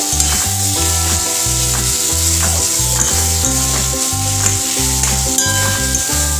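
Potato strips and spice masala sizzling in hot mustard oil in a wok, stirred and turned with a metal spatula.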